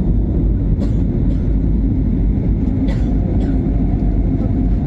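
Steady low rumble of an airliner, with a few brief clicks or rattles about a second in and around three seconds in.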